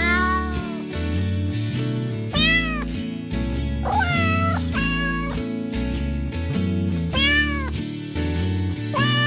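Cats meowing, about six separate meows, each under a second and rising then falling in pitch, over background music with a steady beat.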